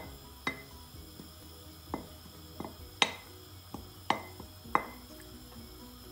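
A wooden spoon knocking and scraping against a ceramic plate and the pot as shredded chicken is pushed off the plate into the broth: about eight sharp clicks, some with a short ring, the loudest about three seconds in.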